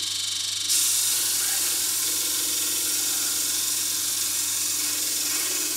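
Small homemade disc sander running; about a second in, a block of wood is pressed against the spinning sanding disc and a steady sanding hiss sets in and continues.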